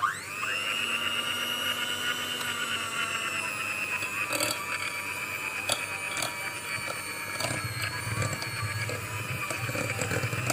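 Electric hand mixer switching on with a quick rising whine, then running at a steady high whine as its twin beaters beat soft butter in a glass bowl. A few sharp clicks come from the beaters knocking the glass.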